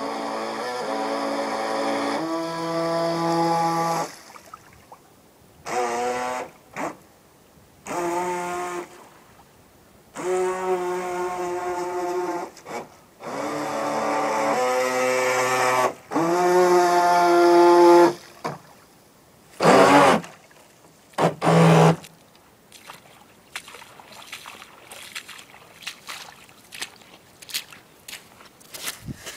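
Radio-controlled boat's small electric motor whining in throttle bursts of one to four seconds with pauses between, its pitch shifting up and down from burst to burst; only faint scattered ticks near the end.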